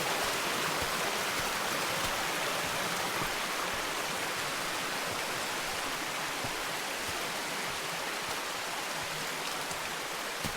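Shining Creek's water rushing, a steady wash of noise that grows slightly quieter toward the end.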